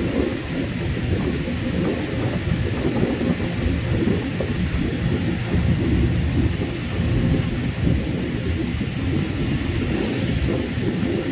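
Twin-engine widebody jet airliner's engines giving a steady, deep rumble as it lines up and spools up for its takeoff roll.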